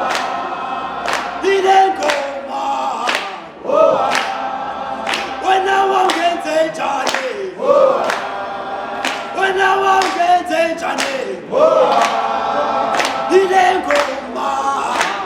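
A group of voices singing together in harmony, like an unaccompanied choir, with a sharp beat roughly once a second.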